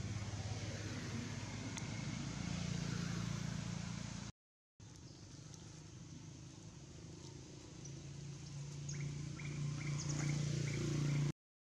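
A motor vehicle engine running with a steady low hum that shifts in pitch and grows louder toward the end, the sound cutting out briefly about four seconds in. A few short bird chirps near the end.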